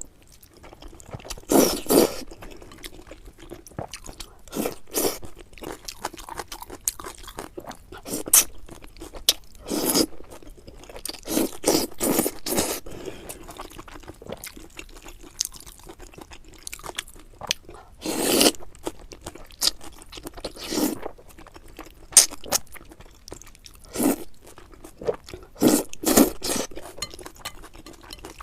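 Close-miked eating: a mouth chewing and crunching on noodles and chicken, in irregular bursts with quieter pauses between.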